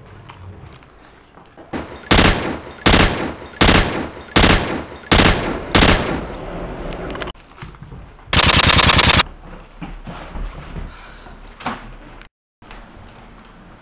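Gunshot sound effects dubbed onto a home-made film: six single shots about two thirds of a second apart, then, about eight seconds in, a short burst of rapid automatic fire.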